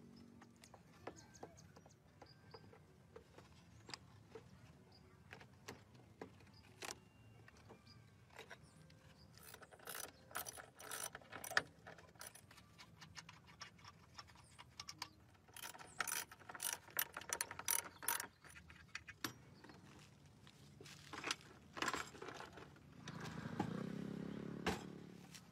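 Hand tools working on the rusted steel of an old car door: scattered clicks, clinks and scrapes, with busier bursts of metallic clatter about ten and sixteen seconds in. A longer, louder scrape comes near the end as the door is pulled.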